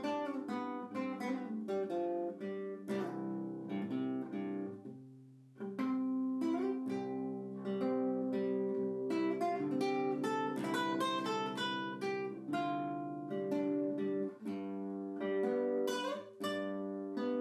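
Solo classical guitar playing, plucked single notes and chords that ring and decay, with a brief lull about five seconds in.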